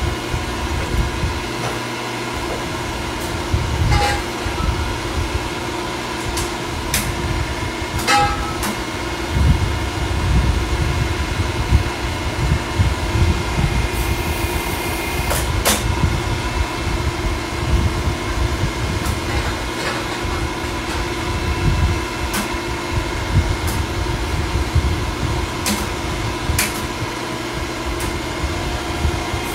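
Exhaust pipe bender running with a steady mechanical hum as exhaust tubing is bent, broken by a few sharp metal clanks at irregular intervals.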